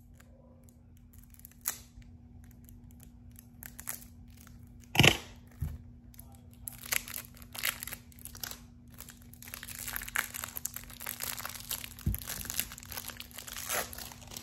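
Clear plastic wrapping being peeled and torn off a Yu-Gi-Oh! trading-card deck. There are scattered crinkles and one sharp tear about five seconds in, then dense crinkling as the wrapper is crumpled up near the end.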